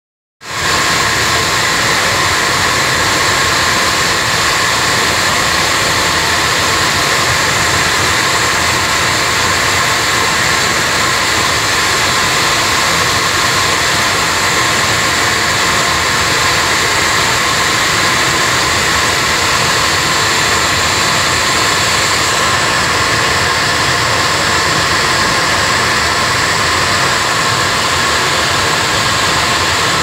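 Holman boiler's oil burner firing heavy oil: a loud, steady rush of burner fan and flame, with a few steady high tones.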